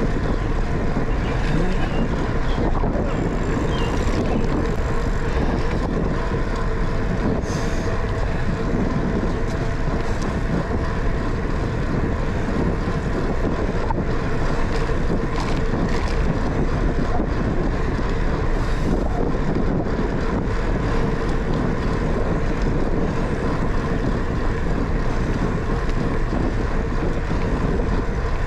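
Bicycle ridden along a paved path: wind buffeting the microphone, with a steady hum from the moving bike and a few faint clicks.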